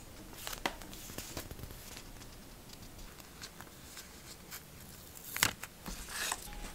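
Paper sticker labels being handled and peeled from their backing: light rustling and small clicks, with a sharper click and crackle about five and a half seconds in and a short rustle just after.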